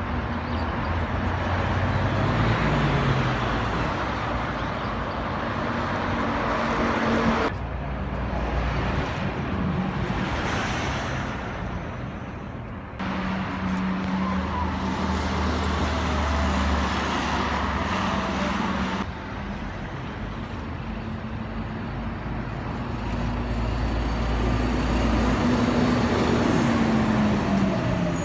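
Road traffic: vehicle engines running and passing, with tyre noise. An engine note rises in pitch a couple of seconds in and another falls near the end. The sound changes abruptly three times, as separate recordings are cut together.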